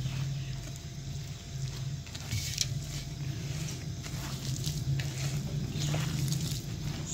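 A hand squeezing and mixing a wet gram-flour batter of sliced potato and onion in a plastic bowl: irregular squelches and rustles, over a steady low hum.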